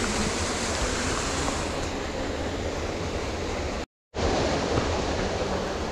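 Steady rush of a waterfall, broken by a brief dead-silent gap about four seconds in.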